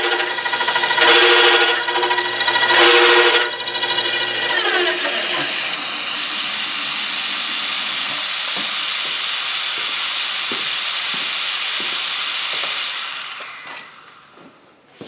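Milling machine's slitting saw cutting a slot in a metal workpiece: a loud, pitched ringing that pulses for the first four seconds or so. The saw then runs on with a steady high hiss before the machine spins down and fades out near the end. The machinist takes the noisy cut for the sign of a dull saw.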